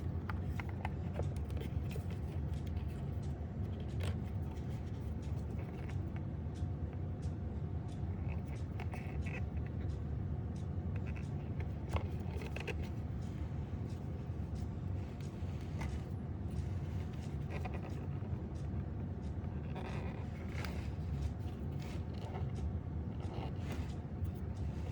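Steady low background hum with scattered faint clicks and light taps.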